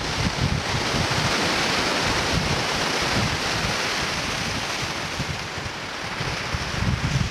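Wind-driven Lake Ontario waves breaking on rocks and washing up a sand beach, a steady hiss of surf. Wind buffets the microphone in low, gusty rumbles.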